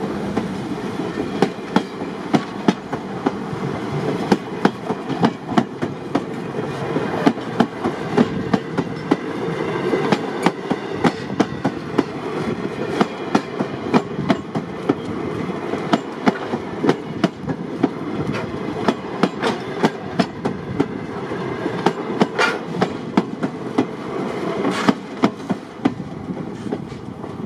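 Wooden railroad passenger coaches rolling past, their wheels clicking sharply and often over rail joints above a steady rumble.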